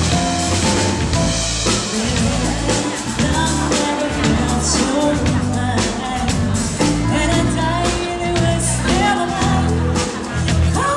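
Music: a song with a singing voice over drums and bass, with a steady beat.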